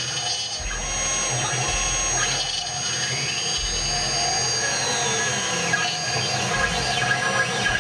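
CNC router spindle running with a small bit carving a wooden bowl: a steady high whine, with a second whine that rises and falls in pitch several times as the cutter moves through the wood.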